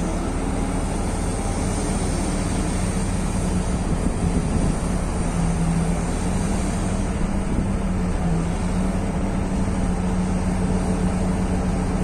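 Engine running steadily, a constant low hum over an even drone with no breaks or changes in pace.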